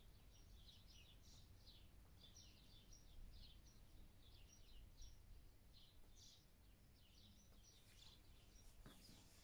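Faint birds chirping in a quick, irregular run of short high chirps, over a low steady background rumble.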